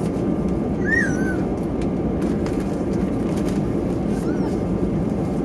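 Cabin noise inside an Airbus A320 taxiing: a steady low rumble of the engines and the rolling airframe, with a few light ticks. A short squeaky chirp sounds about a second in, and a fainter one a little after four seconds.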